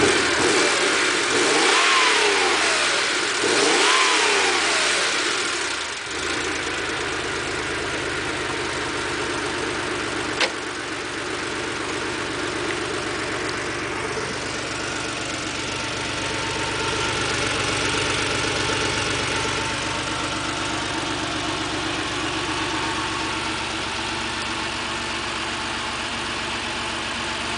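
1987 Porsche 911 Carrera's air-cooled 3.2-litre flat-six through a Billy Boat aftermarket muffler, revved twice in the first few seconds, each time rising and falling, then idling steadily. A single sharp click about ten seconds in.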